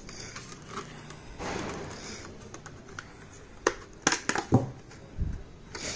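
Smartwatch packaging being handled as the watch is lifted out of its box: a soft rustle about one and a half seconds in, then a run of sharp clicks and taps and a dull thump near the end.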